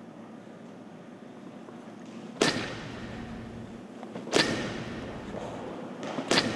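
Baseball bat hitting pitched balls three times, about two seconds apart, each a sharp crack with a short ringing tail, over a low steady hum.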